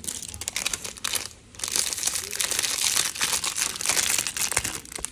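Clear plastic packaging crinkling as it is handled: a crackly spell of about a second, a brief pause, then a longer, louder spell of crinkling.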